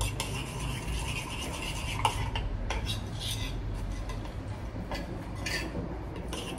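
A metal spoon scraping and clinking against a ceramic plate while someone eats, with a sharp clink about two seconds in, over a low steady hum.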